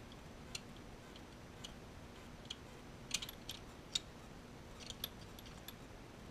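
A scattering of light, sharp clicks and taps at irregular intervals, the loudest about three and four seconds in: small watchmaking tools and parts being handled on the bench, over a steady faint hiss.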